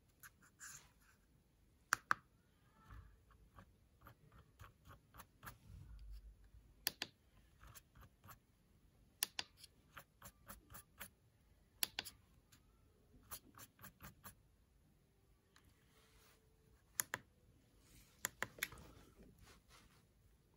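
Irregular sharp clicks from a TC55H CNC controller being worked by hand: its side MPG handwheel turned notch by notch, with keys pressed. Some clicks come singly, others in quick runs of several.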